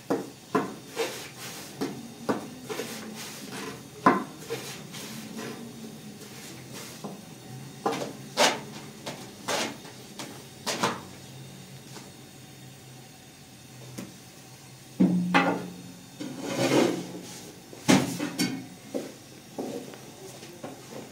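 Irregular knocks and clatter, as of household objects being handled and set down, some sharp and loud, with a short low hum about two-thirds of the way through.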